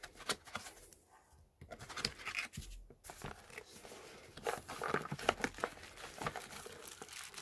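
Cardboard box and packaging rustling and scraping as hands pull a dome CCTV camera and its cardboard insert out of the box, with irregular crinkles and small knocks.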